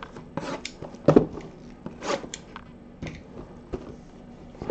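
Gloved hands handling shrink-wrapped cardboard trading-card boxes: scattered plastic-wrap rustles and light knocks, the loudest about a second in.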